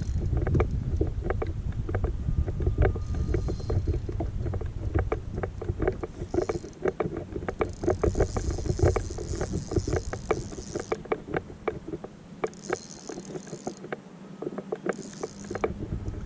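Water lapping and slapping against a small boat's hull in quick, irregular knocks, over a low wind rumble on the microphone that drops away for a few seconds past the middle.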